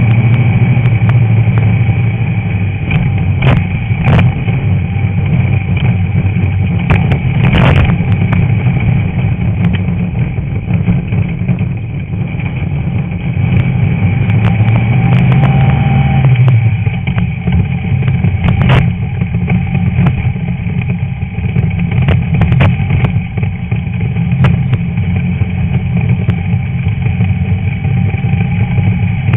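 Stock Volkswagen Beetle's air-cooled flat-four engine running hard under race load, with sharp knocks and rattles from the car jolting over rough off-road ground. About sixteen seconds in, the engine note rises, then drops away.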